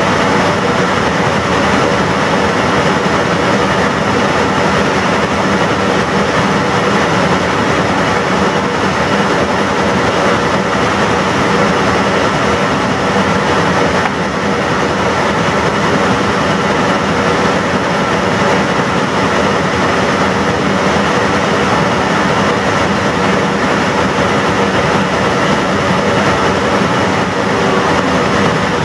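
Steady flight-deck noise of an airliner on approach: an even rush of air with a low hum underneath, unbroken throughout.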